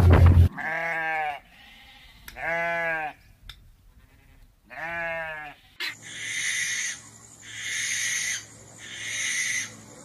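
A loud low engine hum cuts off half a second in. Then come three drawn-out, bleat-like animal cries a second or more apart, each rising and falling in pitch, followed by four short rasping, hissing calls about a second apart.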